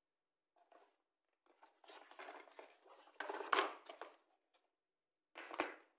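Cardboard box being handled and shifted about: rustling and scraping for a couple of seconds with a sharper knock in the middle, then another short scrape with a dull thump near the end.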